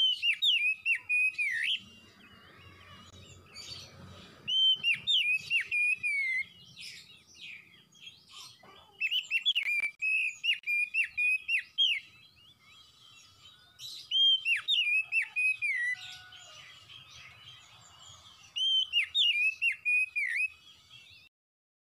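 Oriental magpie-robin singing: five loud bursts of rapid, rising and falling whistled notes, each about two seconds long, with pauses of a couple of seconds between them.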